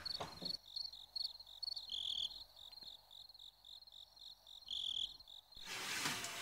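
Crickets chirping in a steady, regular pulse of short high chirps, a few a second. Near the end a louder rustling noise comes in over them.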